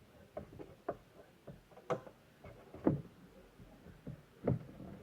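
Scattered light knocks and taps from objects being handled, about five or six irregular strikes, typical of handling a cardboard box and its plastic packaging during an unboxing.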